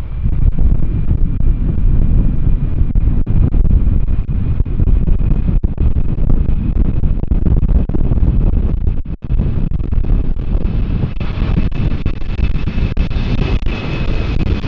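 Airliner engines running loud: a deep rumble with a steady high whine. The hiss grows brighter in the last few seconds.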